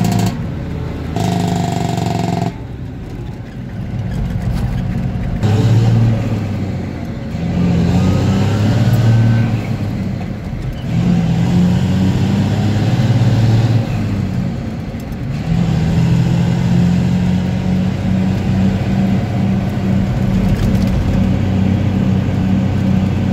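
Engine of a 1975 Dodge Bighorn tandem-axle tractor truck, heard from inside the cab while driving, pulling through the gears: its pitch rises and drops back several times.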